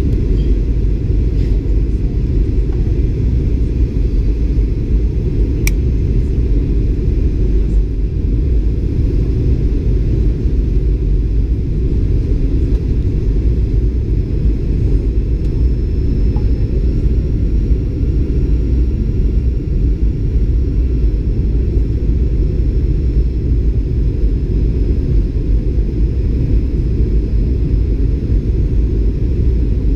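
Boeing 737 on final approach, heard from inside the cabin at a window seat: a steady low rumble of the engines and airflow. A faint high, steady whine comes in about halfway through.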